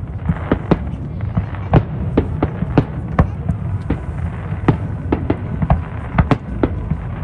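Aerial fireworks going off in quick succession: many sharp bangs, irregular and two or three a second, over a steady low rumble.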